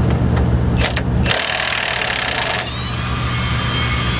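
Impact wrench hammering for about a second, then running free with a steady high whine as the fastener lets go, over a steady low hum. A few clicks come just before the hammering.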